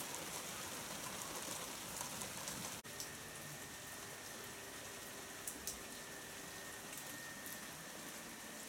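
Steady rain falling on garden foliage and ground, with scattered close drips ticking through it.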